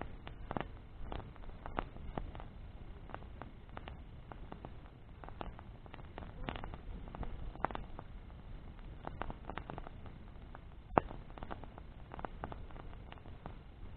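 Wood bonfire crackling, with irregular snaps and one sharp pop about eleven seconds in, over a steady low rumble.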